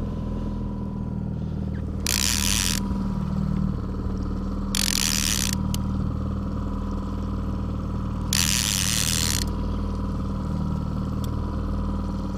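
Line-counter trolling reel rattling in three short bursts as a hooked fish is fought, over the steady drone of the boat's outboard motor trolling.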